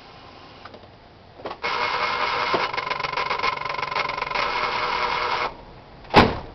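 The throttle body unit (TBI) of a VW AP 2.0 engine, with the ignition switched off, makes a loud electric buzz with a fine rattle. The buzz starts with a click, runs about four seconds and cuts off abruptly. A single sharp knock follows near the end. This is the strange noise the owner is showing as a fault.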